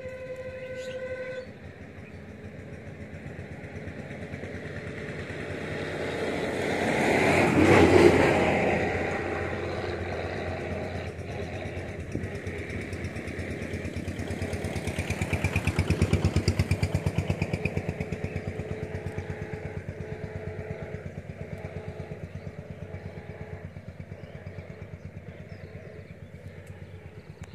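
Motor vehicles passing on a road. A horn sounds briefly at the start. One vehicle swells to a loud peak about eight seconds in and fades, then a second, with a rapid engine beat, passes about sixteen seconds in and slowly fades.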